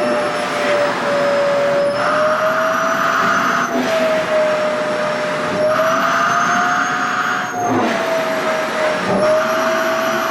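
SHARP EC-KP7F-A vacuum cleaner running with a steady whine whose pitch drifts slightly up and down as its nozzle sucks at stiff, air-permeable organza skirt fabric. Twice, for about two seconds each, a louder hiss of air rushing through the fabric rises over the whine.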